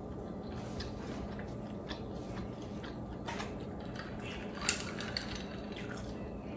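Small clicks and taps of tableware at a meal, with one sharper clink about four and a half seconds in as a glass of ice water is picked up. A steady low hum runs underneath.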